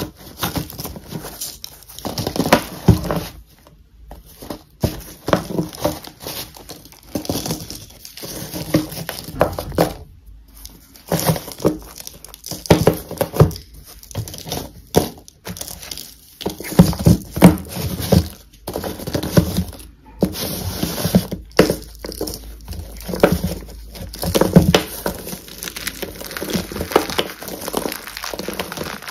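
Slabs of gym chalk being snapped and crushed by hand: a long run of irregular dry crunches and cracks with brief pauses. Near the end, crumbled chalk pieces are squeezed in a fist.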